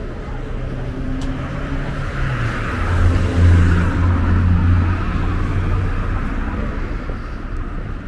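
A car passes by on the street: engine hum and tyre noise grow louder to a peak about halfway through, then fade away.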